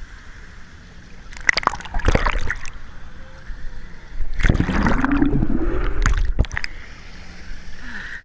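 Wave-pool water splashing and sloshing in two surges, the first about a second and a half in and the second, louder and longer, about four seconds in.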